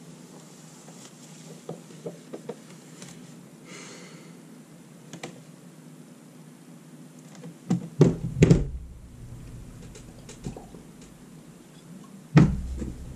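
Paper tissue wiping marker off a whiteboard, with small clicks and taps of the marker and hand on the board. A few dull knocks on the board or desk stand out, the loudest about eight seconds in and again near the end.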